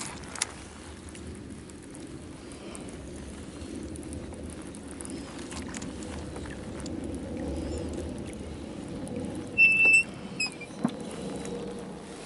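Low steady hum of a bow-mounted electric trolling motor moving a bass boat, with a few light clicks. Near the end comes a brief, high chirp, the loudest sound here.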